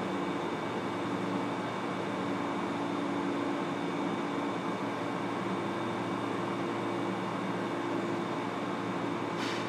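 Inside a Fukuoka City Subway 1000N series car: a steady hum of the car's onboard equipment with a few constant tones and no rising motor whine. A short hiss comes near the end.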